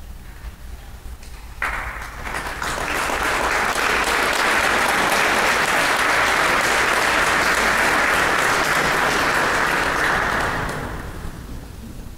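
Audience applauding at the end of a piece: the clapping starts suddenly about a second and a half in, swells, holds steady, and dies away near the end.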